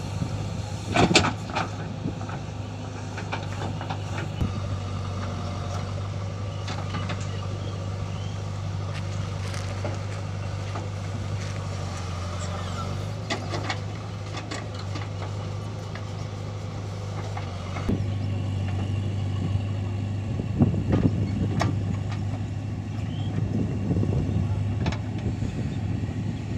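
Diesel engines of a JCB backhoe loader and a Mahindra 575 DI tractor running steadily as the backhoe digs earth and dumps it into the tractor's trolley, with scattered knocks and clatter from the bucket and falling earth and stones. The engine sound gets louder about two thirds of the way in.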